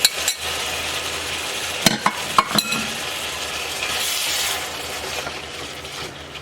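Ground beef and vegetable mixture sizzling in a hot cast iron pan just after beef broth is poured in, while it is stirred. A few sharp knocks of the stirring utensil against the pan come about two seconds in.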